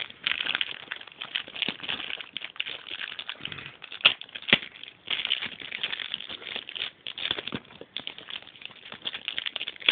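A Beyblade spinning top whirring and rattling against a clear plastic stadium floor: a dense, fast, uneven crackle with scattered sharper clicks, two louder ones about four seconds in.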